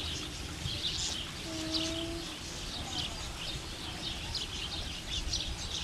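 Many small birds chirping continuously in short, quick high notes, with one brief steady low tone about one and a half seconds in.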